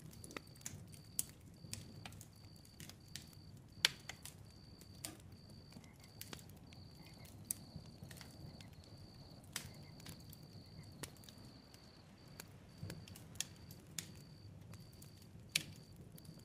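Faint background soundscape of soft, irregular crackling clicks over a high, thin pulsing tone that repeats about twice a second, with a low hum beneath.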